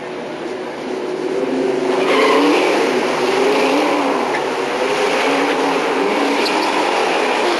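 Two drag-racing cars launching off the start line and accelerating hard, the engines' sound jumping up loud about two seconds in and staying at full throttle as they pull away down the strip.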